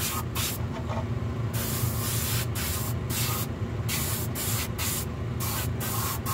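A small Harbor Freight spray gun, run off an air compressor, spraying paint in about ten short bursts: a hiss that stops and starts as the trigger is worked, over a steady low hum.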